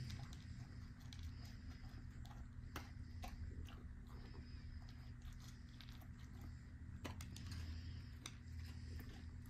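Mini goldendoodle chewing dry kibble from a stainless steel bowl: scattered sharp crunches and clicks, a few seconds apart, over a faint steady low hum.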